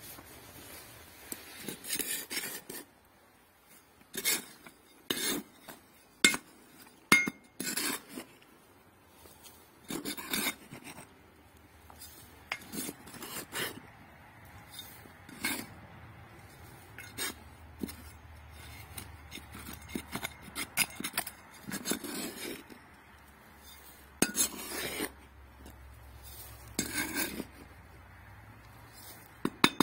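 A small metal hand trowel digging into dry, stony soil: irregular scrapes and sharp clinks of the blade against stones and gravel, a stroke every second or two.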